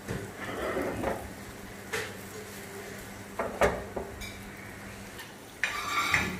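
Milk tea bubbling at a rolling boil in a steel saucepan, close to its eighth boil, with a steady low hum under it. A few sharp knocks fall in the middle, and a brief louder rush of hiss comes near the end.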